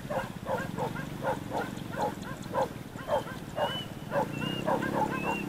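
Rapid repeated animal calls, about three a second, over a steady low hum, with short high chirps joining in the second half.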